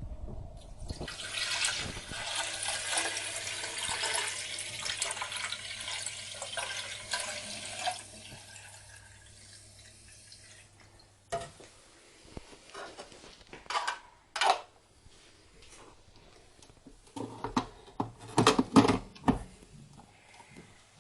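Water running into the machine's plastic water tank, a steady rushing that lasts about seven seconds and then tails off, with a low hum beneath it. Several sharp knocks and clatters follow near the end as the tank is handled.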